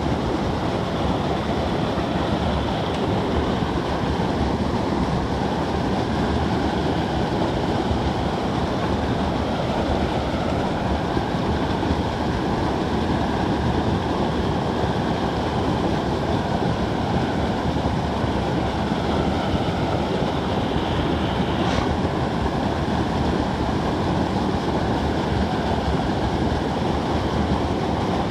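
A swollen creek running high, its muddy water rushing steadily over a small riffle just upstream.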